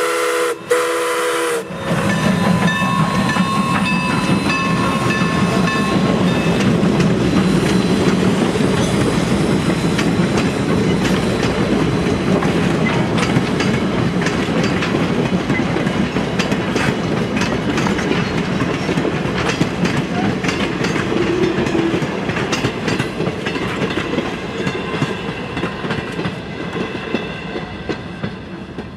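Steam locomotive's whistle sounding a chord, cut off about two seconds in. It is followed by a passenger train passing close by: a steady rumble of the locomotive and coaches rolling over the rail joints with a clickety-clack, fading near the end as the last coach goes by.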